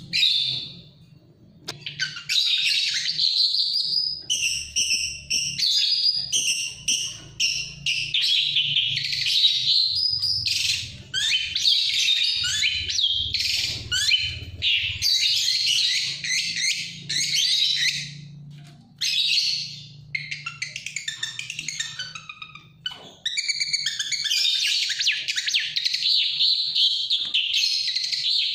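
Caged long-tailed shrike singing a fast, varied, chattering song in long unbroken runs, pausing briefly a few times.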